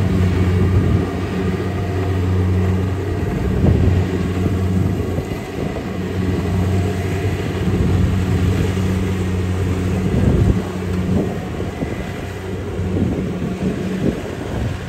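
Kubota DC70 rice combine harvester's diesel engine running steadily as the machine moves across the field, a low hum that rises and falls slightly.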